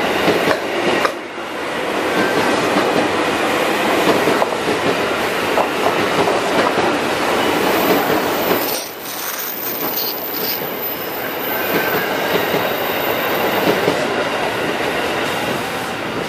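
Train bogie wheels rolling past close by over the points, a steady clatter and rumble of steel wheels on rail. It dips briefly twice, about a second in and again about halfway through.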